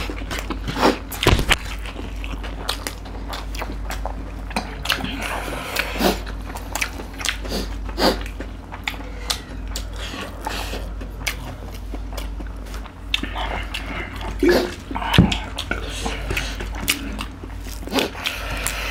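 Close-miked eating of rice and chicken curry by hand: wet chewing, lip smacking and the squish of fingers in the rice, over a steady low hum.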